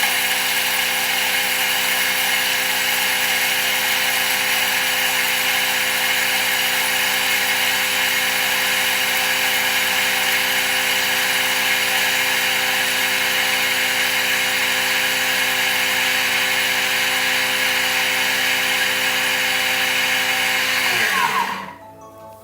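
Thermomix motor running at speed 9, milling dry soup mix and curry powder to a fine powder. It runs steadily at one pitch, then winds down and stops about 21 seconds in.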